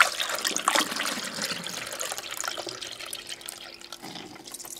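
Dark red hibiscus dye liquid poured from a bowl through a plastic funnel into a spray bottle: a splashing, trickling pour that is loudest at the start and gradually tapers off.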